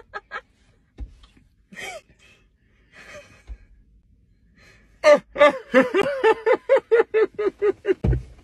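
People laughing: a laugh fades out at the start into quiet breaths and a gasp. About five seconds in comes a loud burst of high-pitched laughter, rapid repeated 'ha-ha' pulses lasting about three seconds.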